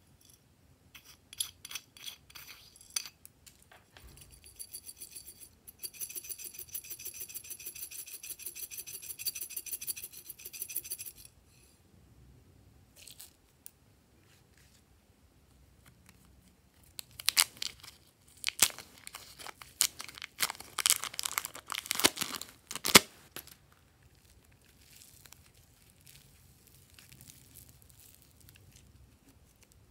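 A plastic container clicks open, then small star sprinkles patter fast and evenly into a glass bowl for about five seconds. Later comes loud crinkling and tearing of a plastic clay packet, and near the end faint soft squishing of the clay.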